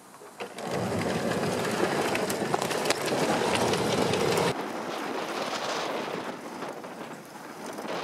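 MTT tracked vehicle moving over snow: a steady rushing, clattering noise from its rubber tracks and drive, which sets in about half a second in and drops sharply in level about four and a half seconds in.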